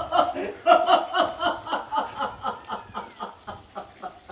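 A person laughing: a quick run of short ha-ha pulses that trails off and grows fainter toward the end.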